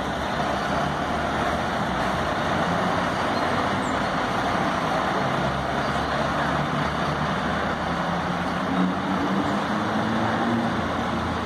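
Fire truck's diesel engine running steadily at low speed as the truck reverses slowly into its station bay.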